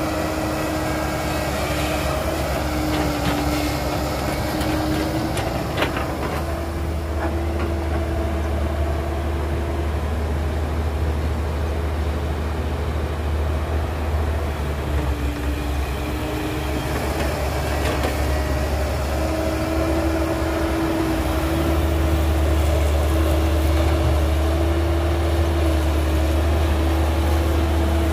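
Heavy diesel engine of construction machinery running steadily with a deep drone and a held, slightly wavering whine over it; a few light knocks about six seconds in, and a little louder in the last third.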